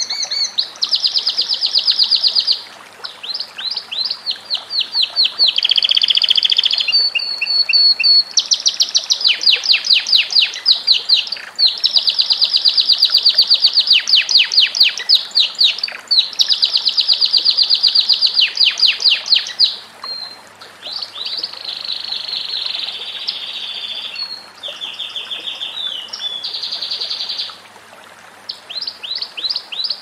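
Domestic canary singing a long, continuous song of rapid trills. Each run of fast repeated notes lasts about one to three seconds before the bird switches straight to a different trill.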